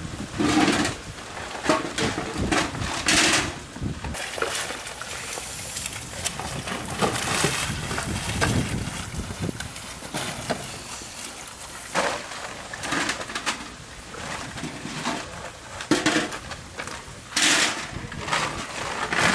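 Oyster shells clattering and knocking against one another as a rubber-gloved hand picks through a pile of them, in irregular clacks every second or two.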